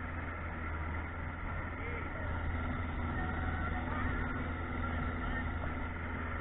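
Boat motor running steadily underway, a low even drone.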